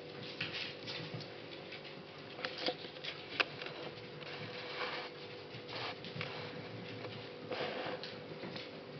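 Paws and claws of playing puppies and dogs pattering and clicking on a wooden floor, with scattered scuffles and two sharper clicks about three seconds in. A faint steady hum lies underneath.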